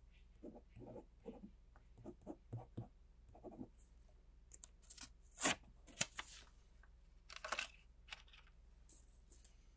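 Marker pen writing on a sticky note in a run of short strokes, then the note peeled off its pad with a brief tearing rip about five and a half seconds in, the loudest sound. A few rustles follow as the note is pressed down flat.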